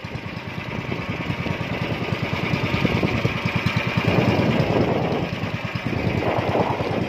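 Small engine of a motorized outrigger fishing boat running steadily under way, its firing strokes even and rapid, with a hiss of water and wind over it.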